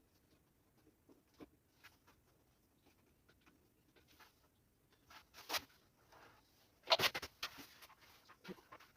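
Scattered light clicks and rustles of small objects being handled, with the loudest cluster about seven seconds in.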